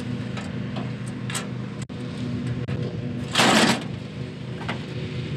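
Ford 3000 tractor's sheet-metal hood being lowered and its side panel pushed into place: light clicks, then a loud metal clatter about three and a half seconds in as the hood comes down. A steady low hum runs underneath.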